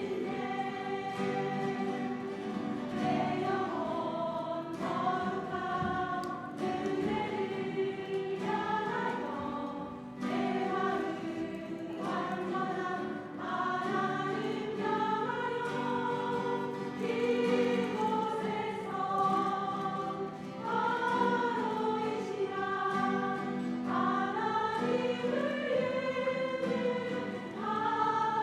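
Church choir singing a sacred song, many voices holding and moving between sustained notes.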